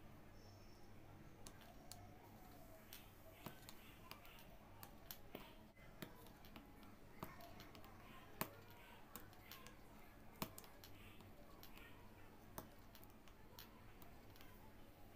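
Faint, irregular clicks of an aari hook needle piercing silk fabric stretched taut on an embroidery frame, with two louder clicks about eight and ten seconds in, over a faint low hum.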